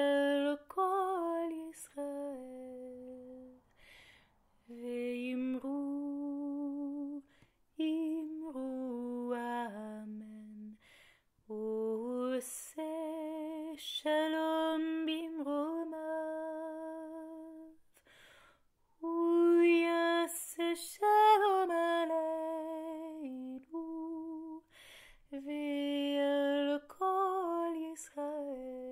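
Solo soprano voice singing unaccompanied: slow, sustained phrases with vibrato, broken by short breaths every few seconds.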